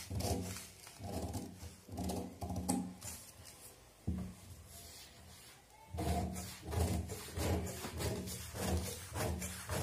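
Steel tailoring scissors cutting through newspaper laid on a table: a run of repeated snips about two a second, with a pause of about two seconds in the middle before the cutting goes on.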